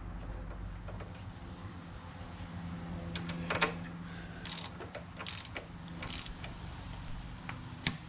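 Ratchet wrench clicking in short, irregular runs as the front brake caliper mounting bolts are tightened down, with a sharp click near the end.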